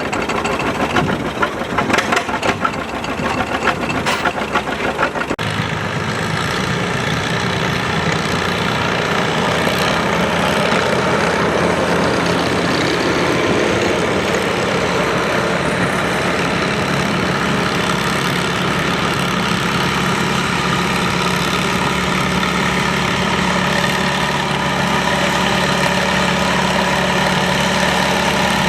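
Antique farm tractor engine running: a rapid, uneven firing beat for the first five seconds, then an abrupt change to a steady engine drone that grows louder over several seconds and holds.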